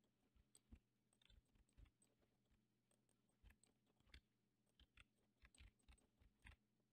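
Very faint, irregular clicks of a computer mouse and keyboard, a dozen or so scattered through, over a low steady hum.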